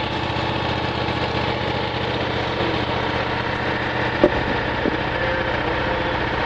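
The Kohler 20 hp V-twin engine of a Miller Legend 302 welder-generator running steadily. A sharp click a little after four seconds in and a fainter one just before five seconds.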